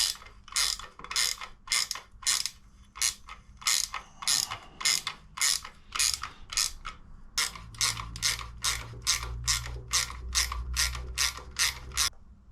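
Hand socket ratchet doing up bolts: a steady run of short rasping clicks, about two or three strokes a second, stopping just before the end.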